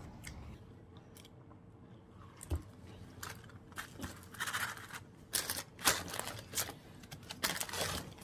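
Close-up crinkling and rustling of fast-food paper wrappers and fry cartons as the food is handled, mixed with chewing. Mostly quiet for the first couple of seconds, then short crackles that come thicker from about four seconds in.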